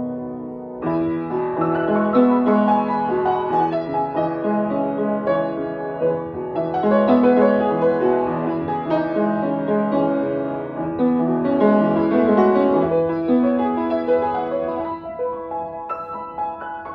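Solo piano music played on an upright piano: a slow piece of sustained chords and melody notes, growing quieter near the end.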